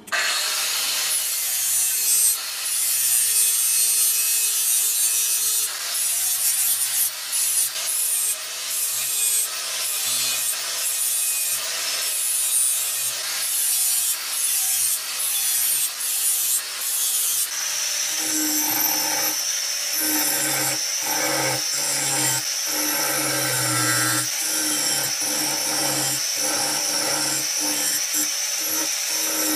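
Scraping and rubbing strokes of abrasive tool work on the old rusty cleaver, repeating about twice a second. About two-thirds of the way in the sound changes and a steady high whine joins the rubbing.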